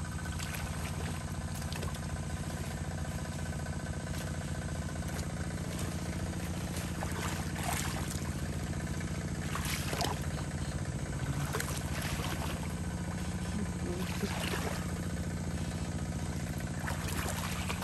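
A small engine runs steadily with a low drone. Occasional splashes and swishes come from people wading through shallow muddy pond water.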